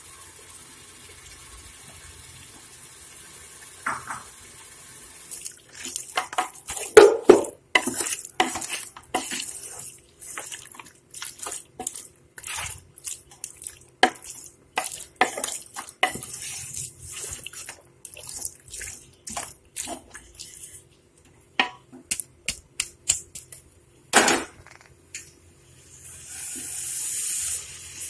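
A spoon knocking and scraping against a metal cooking pot in quick, irregular strokes as pieces of beef are tipped into a frying onion-tomato masala and stirred through. A soft hiss runs underneath, and a louder hiss swells near the end.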